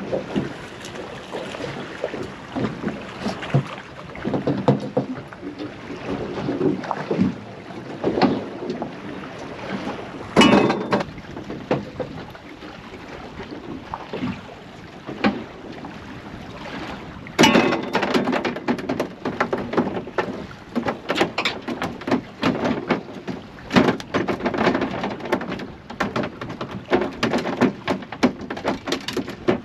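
Water slapping against a small boat's hull, with irregular knocks and two louder thumps about ten and seventeen seconds in.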